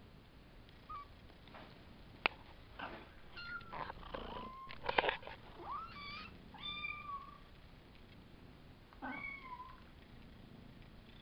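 Five-week-old Savannah kittens meowing: a series of short, high, gliding meows starting about three seconds in, with a last one near the end. A few sharp clicks or taps come among them, the loudest about two seconds and five seconds in.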